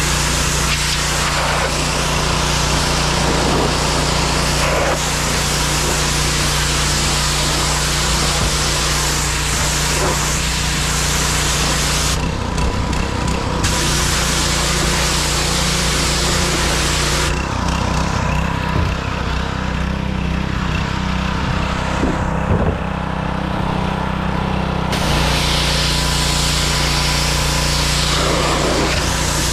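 Gas pressure washer running steadily, with the hiss of its high-pressure jet blasting the inside and lid of a plastic wheelie trash bin. The spray stops briefly near the middle and again for several seconds later on, while the engine keeps running.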